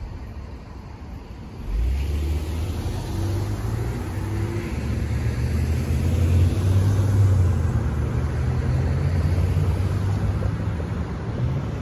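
Road traffic: cars and a pickup pulling away from a stop and driving past, their engines and tyres making a steady low rumble that starts loudly about two seconds in.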